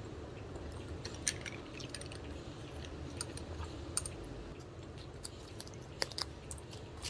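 Close-up chewing and small mouth clicks of someone eating pizza, with a sip of cola from a glass about four seconds in. About six seconds in, two sharp crackles as a plastic sauce sachet is torn open.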